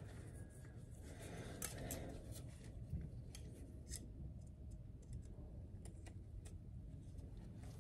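Faint, scattered metallic clicks and scrapes of snap-ring pliers working a steel circlip onto the end of a kingpin.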